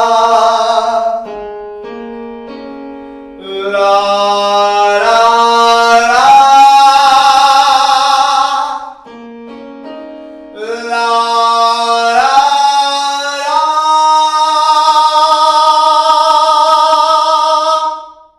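Male voice singing a 'la ra ra' vocal exercise in two phrases of three rising notes, each note louder and more open than the one before. The last note of the second phrase is held for about four seconds. Softer keyboard notes sound between the sung phrases.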